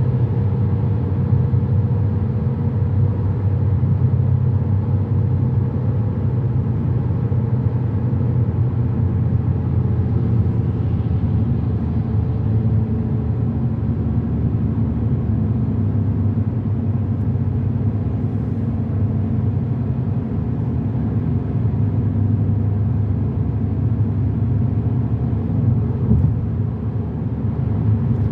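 Steady in-cabin driving noise of a car at road speed: a continuous low rumble of tyres and engine.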